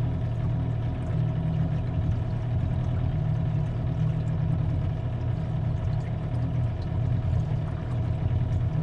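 Outboard motor running steadily at low trolling speed, pushing an aluminium tinny along, an even low hum with no change in pitch.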